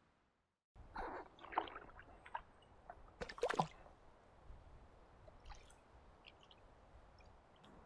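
Water splashing and sloshing in a few short bursts, the loudest about three and a half seconds in, followed by faint drips and small ticks.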